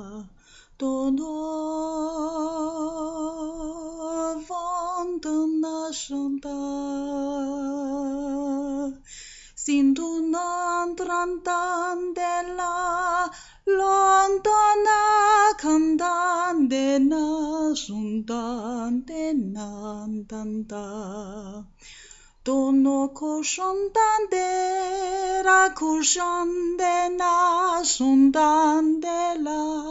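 A woman singing in tongues unaccompanied, long held notes with a wavering vibrato on flowing nonsense syllables, broken by a few short pauses.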